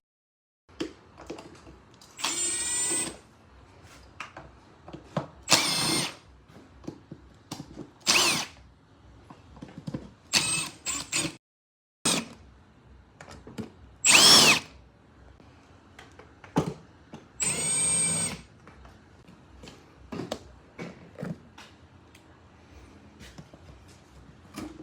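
A power drill runs in about six short bursts, its motor pitch rising and falling as it spins up and slows, with small handling clicks between bursts.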